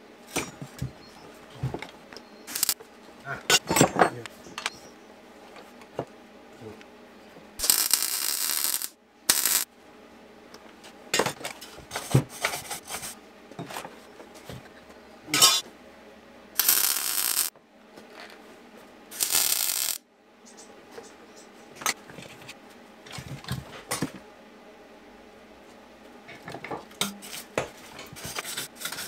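Electric arc welding on a steel Vespa scooter exhaust: four short welding bursts of about a second each, with sharp metallic clinks and taps on the part between them. Near the end a wire brush scrubs over the metal.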